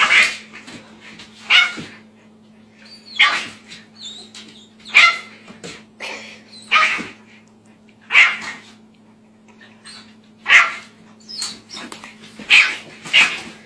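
Small puppy yapping in sharp, high-pitched barks, about one every one and a half to two seconds, nine or so in all, with the last two close together near the end, guarding its food bowl against a much larger dog. A faint steady low hum runs underneath.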